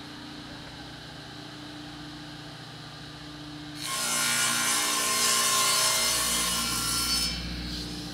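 Hybrid table saw running with a steady motor hum; about four seconds in the blade starts ripping through a large sheet panel, a loud cutting noise that lasts some three and a half seconds before the saw drops back to free-running.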